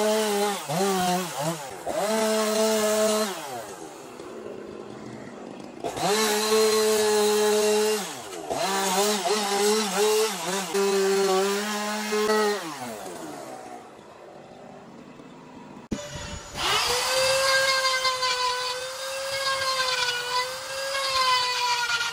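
Chainsaw revving and cutting into wood in two long runs, its pitch sliding down as it drops back between them. About two-thirds of the way through it gives way to a high-pitched, steady whine of a handheld rotary tool grinding wood with a carving burr, its pitch wavering slightly under load.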